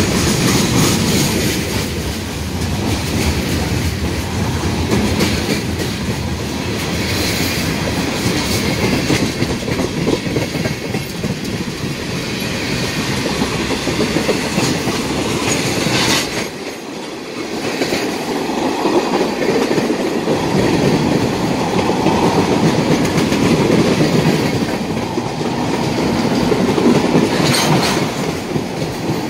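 Loud freight train of tank cars, boxcars and covered hoppers rolling past, its wheels clattering over the rails. The sound dips briefly about seventeen seconds in.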